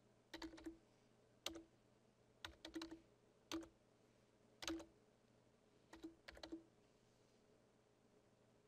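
Faint computer keyboard typing: short bursts of keystrokes with pauses between them, stopping about two-thirds of the way through.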